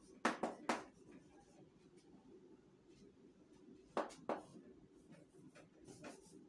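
Chalk writing on a blackboard: short sharp taps and scratches of the chalk stick, in a cluster near the start and another about four seconds in.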